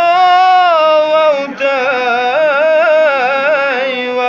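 A man's solo voice sings Kashmiri Sufi devotional verse (a kalam) unaccompanied, holding long wavering notes. One phrase ends about a second and a half in, and a more ornamented phrase full of quick melodic turns follows.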